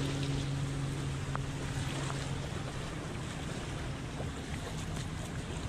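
Wind and small waves washing on the shore, a steady rush of noise. A low steady hum runs underneath and fades out about two and a half seconds in.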